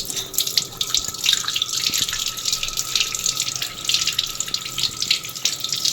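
Water running from a tap and splashing into a sink, starting abruptly, with a thin steady high tone underneath.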